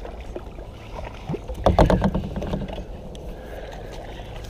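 Low, steady water and wind noise around a plastic sit-on-top kayak drifting on a river, with a few small knocks. A brief louder sound comes about a second and a half in.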